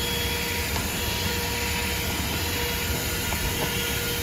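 THISWORX corded 12-volt handheld car vacuum running steadily, its motor giving an even whine over the rush of air through its brush attachment.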